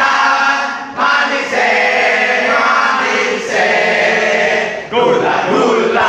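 A group of men singing a scout chant-song loudly together in unison, in phrases of a second or two with short breaks between them.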